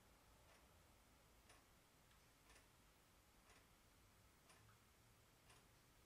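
Faint, even ticking, about one tick a second, over a low room hum.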